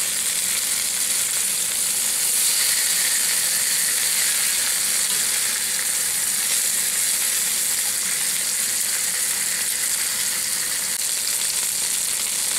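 Breaded herb chicken slices frying in hot oil in a pan, a steady sizzle.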